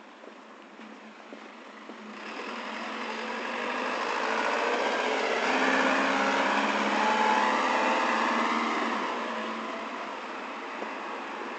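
A truck's engine and tyres on the street, growing louder from about two seconds in, loudest around the middle, then fading as it moves off.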